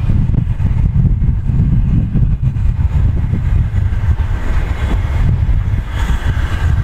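Wind buffeting the microphone: a heavy, uneven low rumble.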